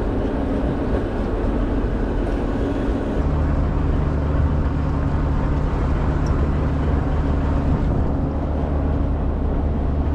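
Fishing boat's engine running steadily under a haze of wind and water noise; its low hum gets stronger about three seconds in.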